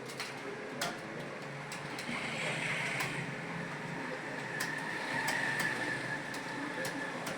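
Computer keyboard keys clicking at an irregular pace as someone touch-types, over a steady background hum like traffic or a fan.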